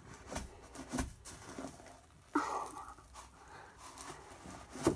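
Slime being squished and pressed into foam beads by hand in a glass bowl: soft, irregular crackles and clicks from the beads, with a louder rustle about two and a half seconds in and a sharp click near the end.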